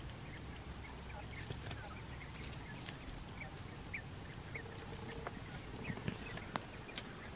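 Japanese (Coturnix) quail peeping: short, soft high chirps scattered throughout, with a few light taps near the end.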